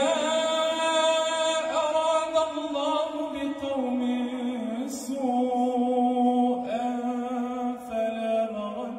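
A man's voice chanting Quran recitation in melodic tajweed style, drawing out long held notes that slide slowly between pitches.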